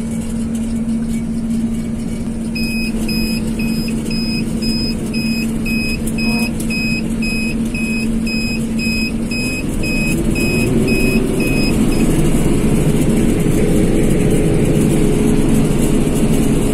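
Claas Mega 208 combine harvester's diesel engine running steadily, then speeding up about ten seconds in and running louder at higher revs. For much of the time an electronic beeper sounds about twice a second, then stops.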